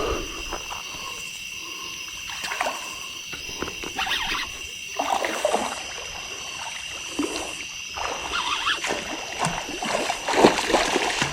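A hooked channel catfish splashing and thrashing in shallow creek water as it is brought to the bank, in irregular bursts, the loudest near the end. A steady high-pitched drone runs underneath.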